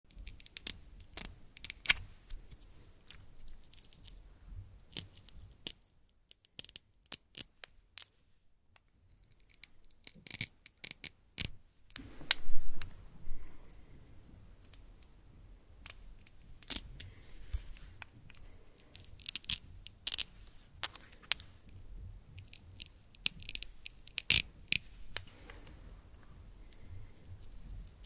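Hook-and-loop (Velcro) fasteners ripping apart as wooden toy food slices are pulled off wooden play-pizza pieces: a run of short crackly tears and sharp clicks. There is a near-quiet stretch about a quarter of the way in, and the loudest tear comes about halfway through.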